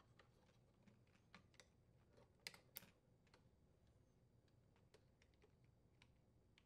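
Near silence with a scattering of faint plastic clicks, the two clearest about two and a half seconds in: wire harness connectors being handled and pushed onto the terminals of a refrigerator dispenser's display control board.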